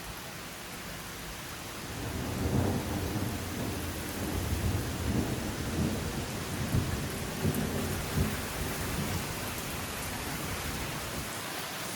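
Heavy rain falling steadily, with a long rolling rumble of thunder that starts about two seconds in, swells several times and fades away near the end.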